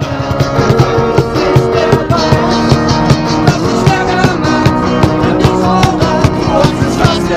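Street band playing live on two acoustic guitars, bass guitar and cajón, with a steady beat.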